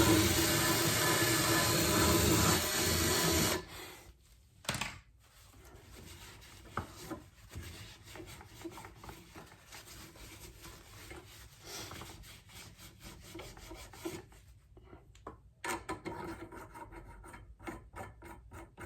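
Scraping and rubbing of a rusted push-mower wheel bushing being worked back and forth on its axle to free it, quickening into rapid back-and-forth rubbing near the end. A loud steady hiss stops abruptly about three and a half seconds in.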